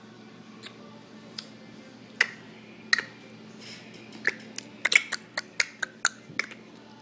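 Small child making sharp clicking and smacking noises with his mouth: a few spaced clicks, then a quick run of about a dozen from about four seconds in.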